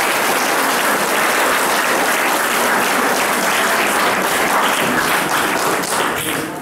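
Audience applauding, steady dense clapping that dies away near the end.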